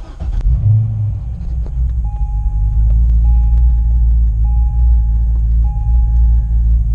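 Chevrolet Corvette C6 V8 engine starting: it catches right at the start, builds over the first second and settles into a steady rumbling idle. Over the idle, a car warning chime sounds four times, about a second apart.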